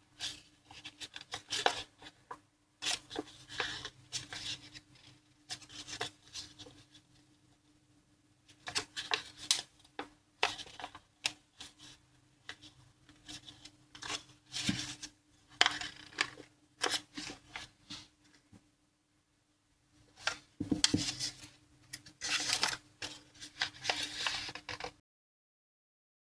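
Square of origami paper being folded and creased by hand: irregular clusters of crackles and rustles, with a faint steady hum underneath. The sound cuts out completely near the end.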